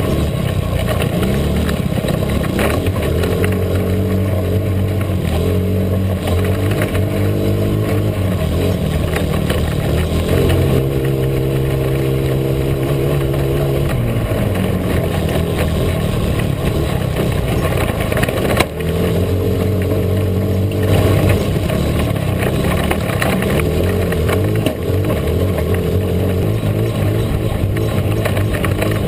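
Engine of a small off-road vehicle running as it drives over rough grass, its pitch holding steady for stretches and sliding up and down with the throttle, over a steady rattle of the ride. A single knock about two-thirds of the way through.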